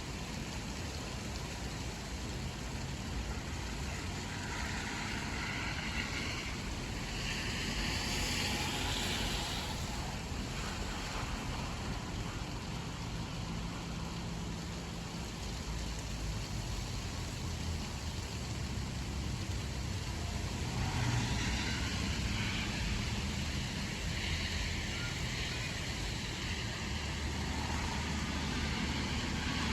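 Steady rain falling, with two slow swells of louder hiss that rise and fade, about a quarter of the way in and again about two-thirds through.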